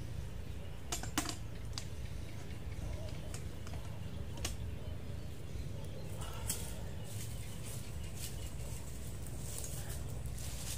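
A few sharp clicks and knocks, scattered irregularly, over a steady low rumble, from a small wood cooking fire with a metal pot being tended on it.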